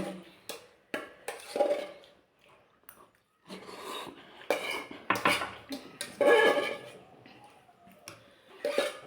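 Cutlery clinking and scraping against dishes while eating, a scatter of sharp clicks.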